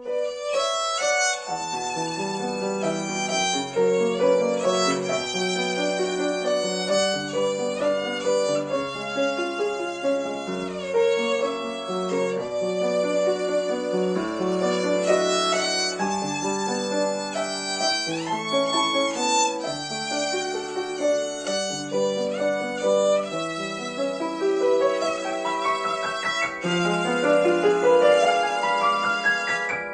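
Solo violin played with the bow, with grand piano accompaniment underneath, in a slow lyrical melody; the violin slides between notes a couple of times, about ten and eighteen seconds in.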